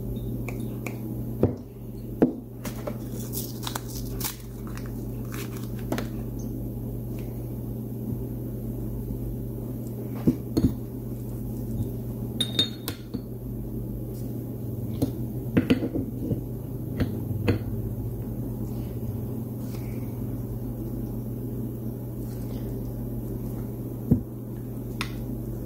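Metal engine parts clinking and clicking as a piston, wrist pin and connecting rod are handled and fitted together, in scattered short knocks over a steady low hum.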